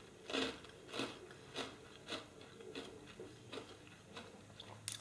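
Crunchy chewing of a mouthful of sugar charcoal (carbón dulce), a hard, porous sugar candy: short crunches about every half-second, growing fainter as the piece is chewed down.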